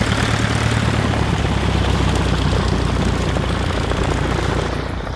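A Van's RV light plane's piston engine and propeller running as it taxis in close by, a steady drone that falls away near the end.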